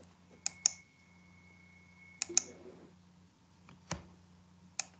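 Faint, sharp computer clicks, about seven of them, several in quick pairs, over a low steady hum. A thin high steady tone holds for about two seconds in the first half.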